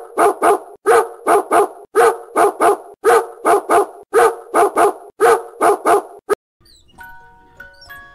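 Dog barking in quick bursts of three, repeated evenly about once a second, like a looped bark sound effect; it cuts off about six seconds in and a light mallet-percussion melody of single ringing notes begins.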